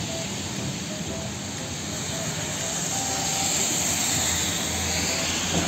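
A fuel tanker truck driving past on a wet road in the rain: a steady hiss of rain and tyres spraying through water, with the truck's engine rumbling underneath, growing louder for a few seconds as it passes.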